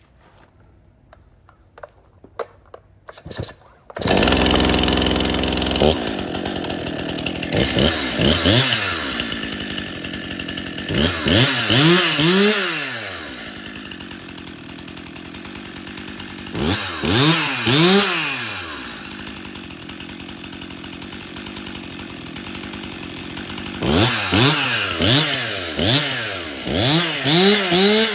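Stihl MS 261 M-Tronic 50cc two-stroke chainsaw begins running suddenly about four seconds in, then idles and is revved up and back down in short bursts, four groups of quick throttle blips. It is being test-run after a full service and a new fuel solenoid, and it runs well.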